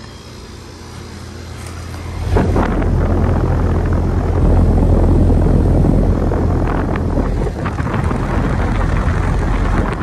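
2020 Goodman GSZ14 two-ton heat pump running in cool mode: a steady low hum from its blanketed rotary compressor and condenser fan. About two seconds in the sound becomes much louder and rushing, as the fan's air moves over the microphone close to the unit.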